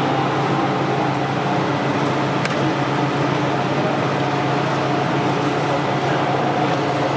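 Plastic string (sutli) extrusion line running: a steady machinery noise with a low hum. A single faint tick about two and a half seconds in.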